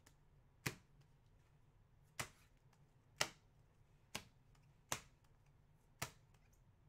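Sports cards in hard plastic holders set down one at a time on a tabletop: six short, sharp plastic clacks, roughly a second apart.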